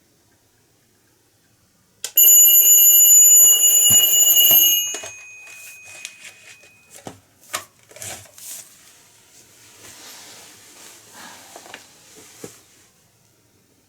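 An alarm goes off about two seconds in, ringing loudly on a steady high pitch, and is cut off about three seconds later; scattered knocks and rustling of handling follow until near the end.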